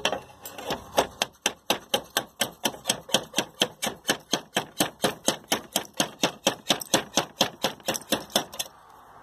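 Roof slate being chopped to an angled valley cut on a slater's iron stake: a rapid, even run of sharp cutting strikes, about four a second, that stops shortly before the end.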